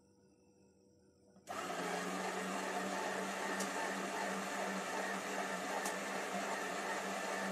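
Electric meat grinder switching on about a second and a half in, then running steadily with a low motor hum as food is pressed down its feed tube with a plunger.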